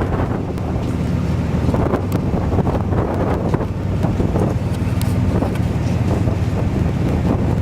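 Thunderstorm wind buffeting the microphone: a loud, steady low rumble that swells and eases in gusts, with frequent short crackles.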